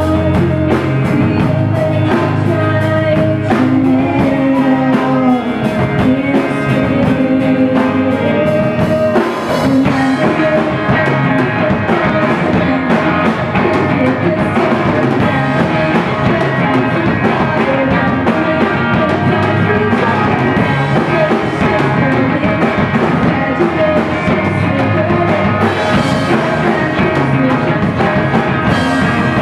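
Rock band playing live: drum kit, two electric guitars and an electric bass guitar.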